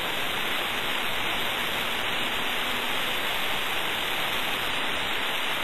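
Compressed air hissing steadily through the nozzle of a small model Tesla bladeless turbine as its discs spin.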